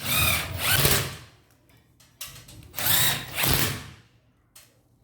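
Power drill running in two bursts of about a second each, its motor whine rising and falling in pitch.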